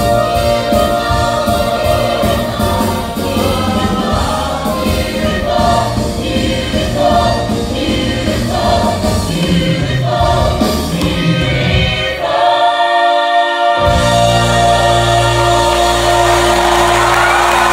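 The full cast of a live stage musical singing together in chorus over the pit band, recorded from the audience. About twelve seconds in the bass drops out briefly, then the company and band hold one long chord.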